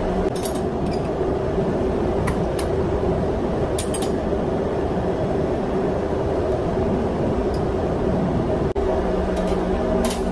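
Steel spanners clinking against a diesel fuel injector and its test bench as the injector is taken apart, several short sharp clinks scattered through, over a steady machinery hum.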